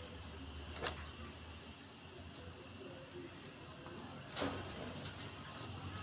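Faint budgerigar sounds in an aviary over a low steady hum, broken by two sharp clicks, the louder one about a second in and another past four seconds.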